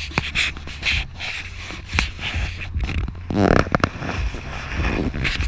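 Rustling, scraping and crackling right on a wearable action camera's microphone, as handling or rubbing against the housing, with a louder rush of noise about three and a half seconds in, over a steady low hum.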